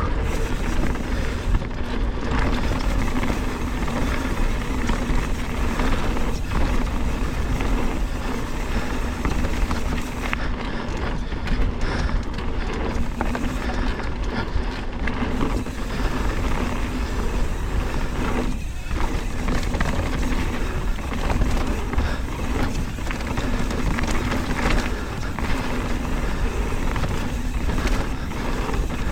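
Mountain bike descending a dirt trail: steady rushing wind and tyre noise, with the high-engagement buzz of an Industry Nine Hydra rear freehub while the rider coasts.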